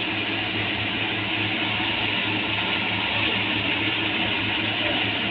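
Steady background noise of a restaurant kitchen as a fish gravy cooks on the stove: an even rushing sound with a low hum underneath.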